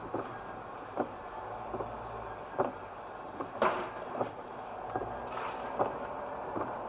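Steady running noise of a vehicle, with a short sharp knock about every second; the loudest knock comes a little past halfway.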